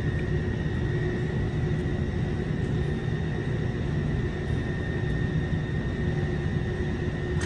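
Steady low rumble with a constant faint high whine running over it, and no gunshots.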